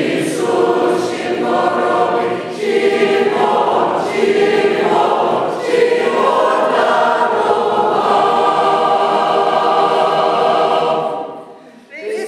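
Church choir singing Byzantine liturgical music unaccompanied, phrase after phrase, ending on a long held chord that dies away near the end.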